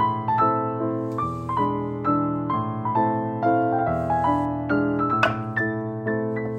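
Background piano music: a gentle melody of many struck notes, each ringing and fading, over a steady bass line.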